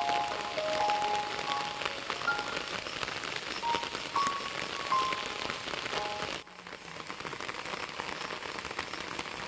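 A light background melody of short held notes over a steady crackling patter of rain. The melody and the louder patter stop suddenly about six seconds in, and a quieter crackling hiss goes on.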